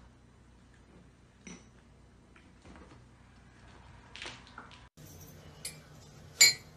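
Faint scattered knocks and rustles, then one sharp clink near the end.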